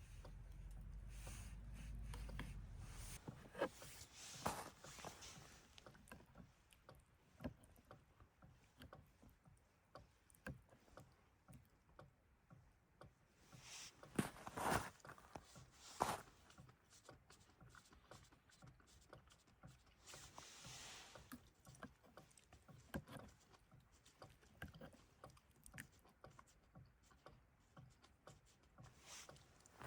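Near silence with a faint low hum that stops about three seconds in, then scattered faint clicks and knocks, a few of them louder around the middle.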